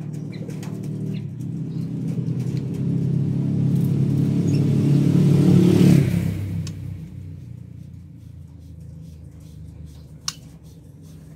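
A motor vehicle's engine, growing louder until about six seconds in and then fading away. A single sharp click comes near the end.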